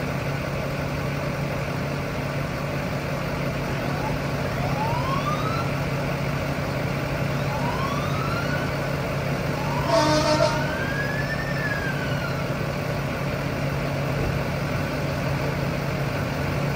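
Engine idling steadily with a low hum. A distant siren wails in rising sweeps around the middle, and there is a short sharp click about ten seconds in.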